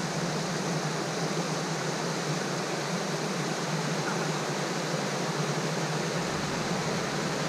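Small mountain creek rushing and splashing over rock ledges and little cascades: a steady, even rush of water.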